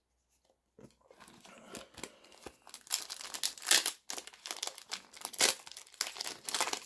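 Foil booster pack of Pokémon trading cards being torn open by hand: crinkling and crackling that starts about a second in, with the loudest rips at about four and five and a half seconds.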